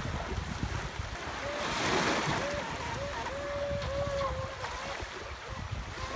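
Small waves washing onto the shore with wind buffeting the microphone, the surf swelling about two seconds in. Over it, a faint whine rises and falls in short spurts: the brushless motor of a Feilun FT012 RC speedboat being throttled out in the waves.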